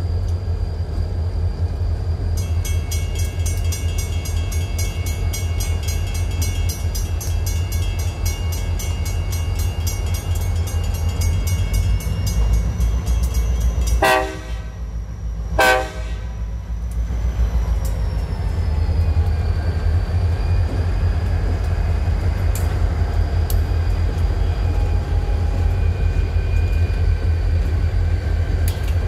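RJ Corman diesel locomotives rumble steadily as they approach and pass through a grade crossing, with the crossing's warning bell ringing rapidly until about halfway through. The lead locomotive then sounds two short horn blasts about a second and a half apart, and the engines keep rumbling past as the train follows.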